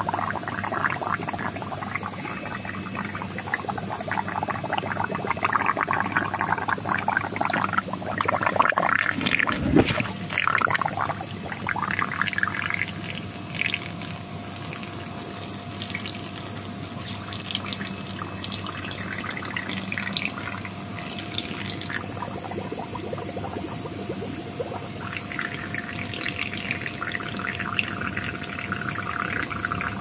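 Water splashing and sloshing as a crowd of live tilapia thrash in a tub, loudest about a third of the way in, then calmer with scattered small splashes.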